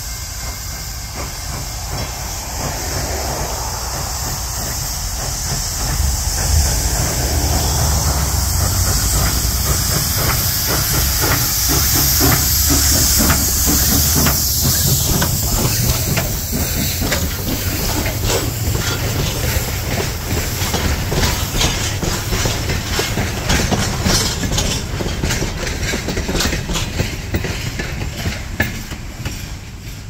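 Pennsylvania Railroad 643, a B4a-class 0-6-0 steam switcher, passing close with steam hissing loudly, followed by its short train of coaches clicking over the rail joints with a low rumble. The sound is loudest about halfway through and fades away near the end.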